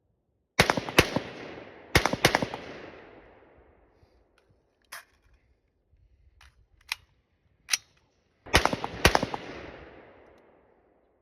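Rifle gunfire: three quick strings of shots, each trailing a long rolling echo, with three separate single shots between the second and third strings.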